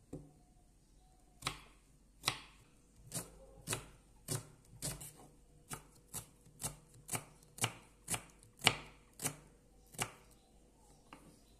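Kitchen knife slicing a red onion on a wooden chopping board: a steady run of sharp cuts, about two a second, each ending in a knock of the blade on the board. The cutting starts about a second and a half in and stops shortly before the end.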